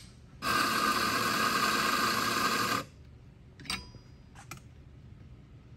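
Mahlkönig E65S GbW grind-by-weight espresso grinder running for about two and a half seconds, grinding a dose of about 12 g into the portafilter, then stopping abruptly. A couple of light clicks follow as the portafilter is handled.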